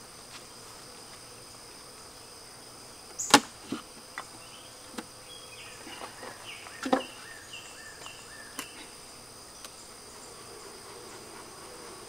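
Wooden beehive parts being handled: a sharp knock about three seconds in, the loudest sound, then several lighter knocks and clicks over the next few seconds, over a steady high-pitched insect drone.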